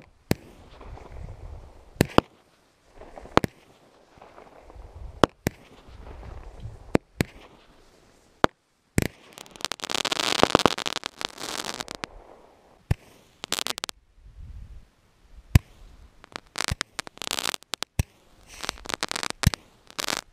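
Consumer fireworks going off one after another: sharp bangs every second or two, with quieter hissing between shots. About ten seconds in there is a dense crackling for two seconds, and near the end the reports come faster.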